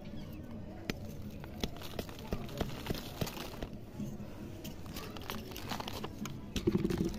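Soil crumbling and crackling as fingers scrape and pick it away from a potted lemon plant's root ball while it is being repotted, with scattered small ticks and crackles.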